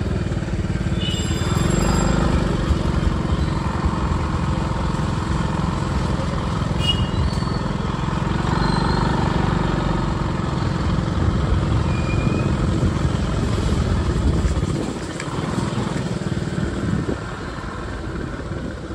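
Motorbike running along a wet road, with wind rumbling on the microphone; the low rumble drops away about fifteen seconds in.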